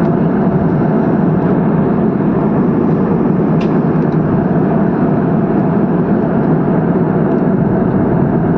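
Steady engine and airflow noise inside an airliner cabin in flight, with one brief tick about three and a half seconds in.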